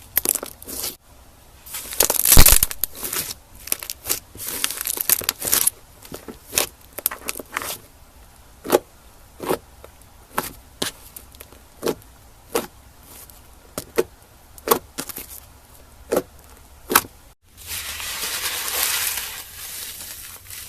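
Slime being squeezed and pressed by hand. It starts with crackling bursts, then gives a steady run of sharp pops at a little more than one a second. After a short break comes a stretch of steady crinkly crackling.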